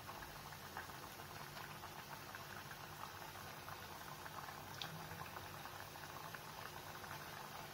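Mathri, discs of wheat-flour dough, sizzling in hot oil as they deep-fry slowly over a low flame: a steady, fine crackle of oil bubbling, with one slightly sharper tick about five seconds in.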